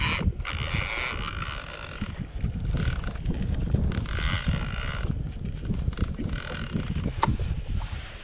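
AVET conventional reel being cranked in a run of short whirring bursts with brief pauses, its gears winding line back in while a hooked white sturgeon is being fought. Wind rumbles on the microphone underneath.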